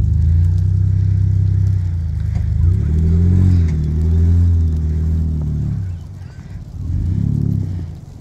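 Pickup truck engine revving as the truck works through deep snow: running steadily, then revving up and holding for about three seconds, easing off, and revving again briefly near the end.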